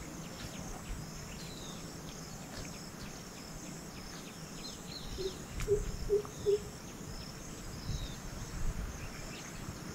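Waterside outdoor ambience: a steady high chirring of insects, with scattered short bird chirps over a low rumble of wind. A few short, low pitched sounds come just past the middle.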